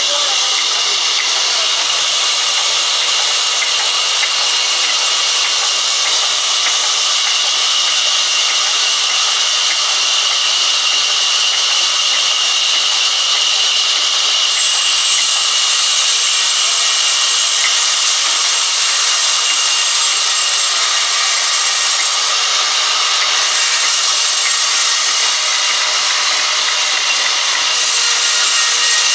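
Large sawmill band saw running steadily and cutting through a log, a continuous hissing whine. The hiss gets sharper about halfway through.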